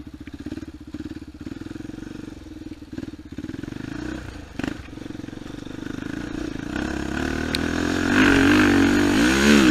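An off-road vehicle's engine running at low revs, with a single knock about halfway through. It then revs up and grows louder over the last few seconds, its pitch wavering as the throttle works on the climb.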